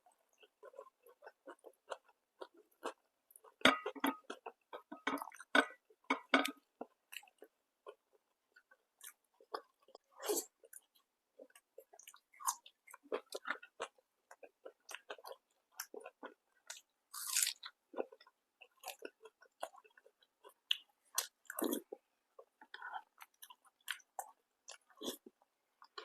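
A person chewing and biting food close to the microphone: irregular wet chewing clicks with occasional crunches, the loudest bites about four seconds in and again past the middle.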